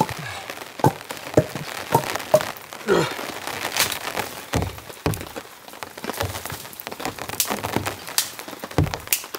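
Wet dead branches snapped and broken up for firewood: a scatter of sharp cracks, with a couple of heavier thunks of wood knocking down.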